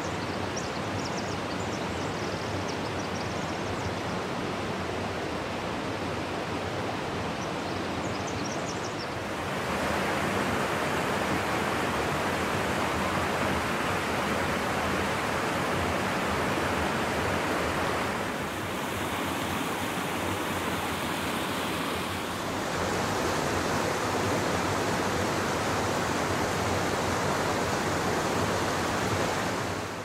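Steady rush of a shallow river flowing over rocks and riffles, louder from about a third of the way in.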